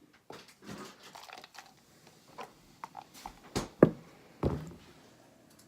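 Scattered light knocks, taps and rustles of things being handled, with two louder thuds close together about four seconds in.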